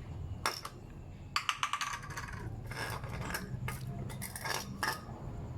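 A string of about a dozen irregular light clicks and scrapes, the sound of small hard objects being handled.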